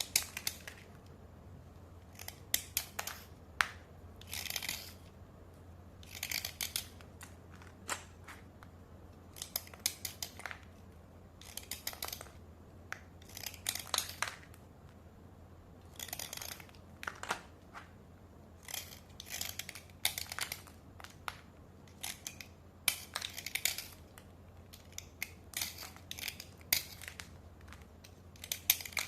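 White slate pencils being dry-scraped: short, gritty scraping strokes come every second or two, some in quick clusters, with brief pauses between.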